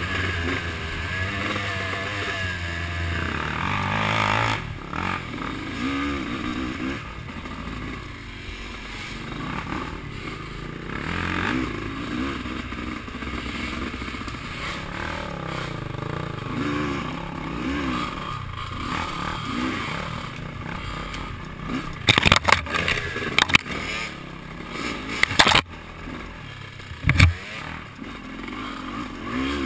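Off-road vehicle engine running and revving up and down while riding a trail. In the last third, a burst of sharp knocks and clatter.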